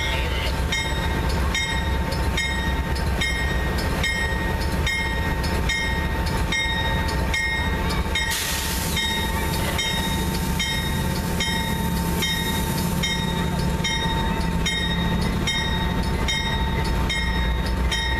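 Diesel passenger locomotive standing at the platform with its engine running as a steady low rumble, while a bell rings steadily at about one and a half strokes a second. A short hiss comes about eight seconds in.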